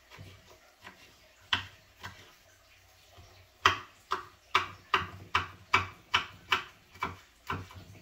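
Kitchen knife slicing tomato into strips on a wooden cutting board: one chop, then a steady run of about ten chops, about two and a half a second.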